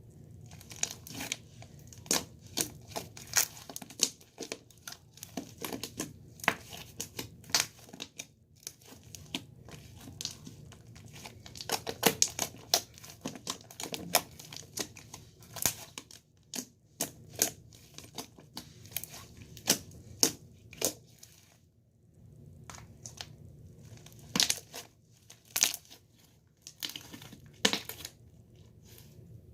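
Slime being squeezed and poked by hand, giving off many sharp, irregular crackles and pops in clusters with short pauses.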